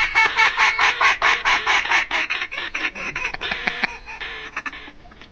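Rapid, even string of duck quacks, about six or seven a second, fading away after about three seconds.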